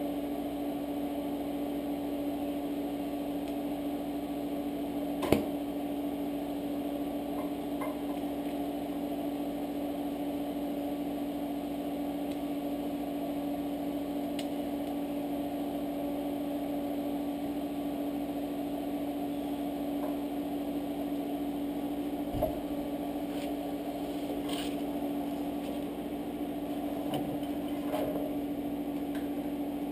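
Steady electrical hum from a TIG welding setup while 4130 chromoly steel tube is tack welded. A sharp click comes about five seconds in and another at about twenty-two seconds.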